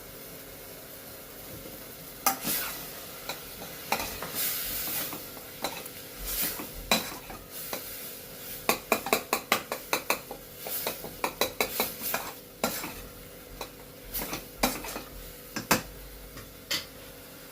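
Spoon stirring a pan of tomato-and-spice masala, scraping and clinking against the pan in many quick strokes. The stirring starts about two seconds in, over a steady background hiss.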